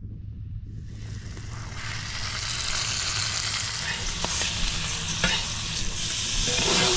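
Fish frying in a hot pan: a steady sizzle that swells louder about two seconds in, with a few small pops.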